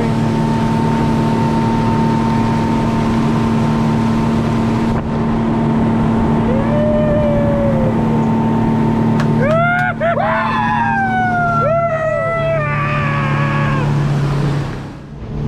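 Motorboat running at speed, a steady engine drone with water rushing past the hull. From about ten seconds in, several drawn-out, falling whoops from voices ride over it.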